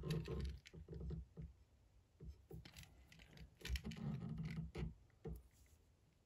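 Light, irregular handling noises from fingers working thread and wire at a fly-tying vise: small rustles, scrapes and clicks, with louder soft knocks near the start and about four seconds in, fading out in the last second or so.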